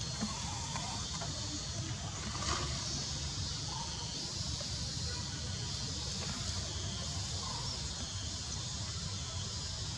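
Steady outdoor background noise: a constant high hiss over a low rumble, with a faint knock about two and a half seconds in.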